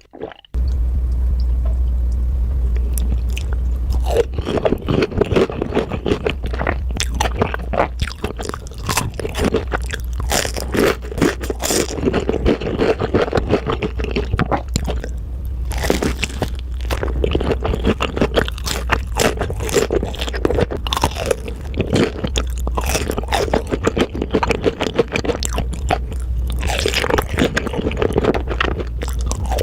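Close-miked mukbang eating: loud, rapid crunching bites and chewing of crisp food, played back sped up. A steady low hum runs underneath.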